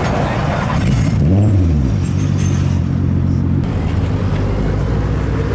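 A car engine rumbling at low revs, with a short rev that rises and falls about a second and a half in before settling back to a steady low note.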